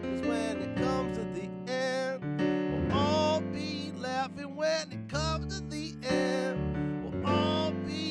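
A man singing with vibrato and bending vocal runs, accompanied by sustained chords on a digital piano.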